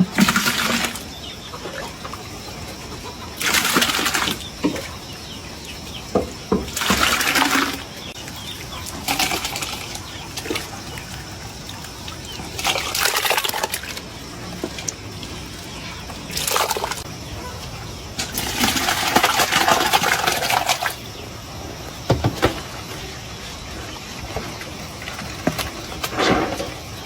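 Water splashing in a run of about eight irregular bursts, each a second or two long, over a steady background hiss.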